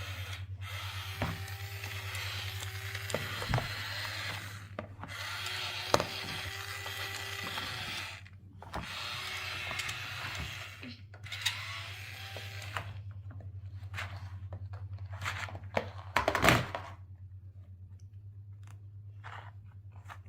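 Digging tools scraping and raking through kinetic sand in stretches of a few seconds, with small clicks and taps. The scraping stops about two-thirds of the way through, leaving light taps and one louder knock.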